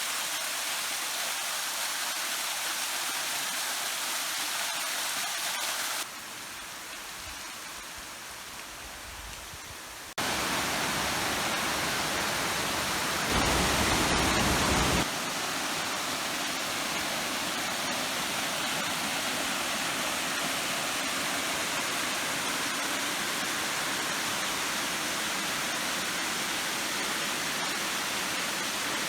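Steady rush of falling and flowing water. About six seconds in it cuts abruptly to a quieter, thinner rush for about four seconds, then back to a fuller one. A louder, deeper rush runs for about two seconds near the middle before it drops back to the steady level.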